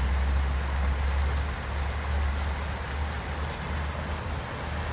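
Water jets of a multi-jet fountain splashing down into the basin: a steady rushing, rain-like hiss, with a steady low rumble underneath.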